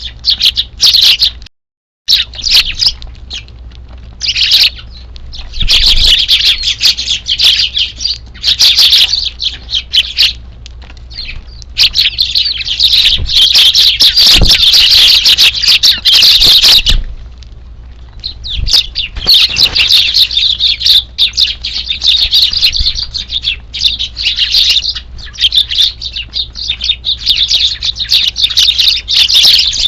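A flock of Eurasian tree sparrows chirping and chattering in loud stretches of several seconds, with quieter gaps between them. The sound cuts out completely for a moment near the start.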